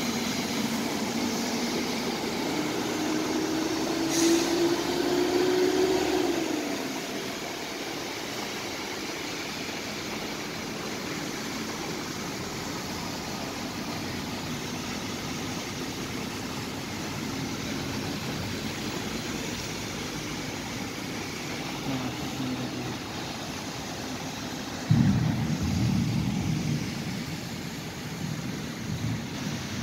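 Traffic wading through a flooded street in rain: vehicle engines and a steady wash of water noise. One engine rises slowly in pitch over the first six seconds, and a sudden louder low rumble starts near the end.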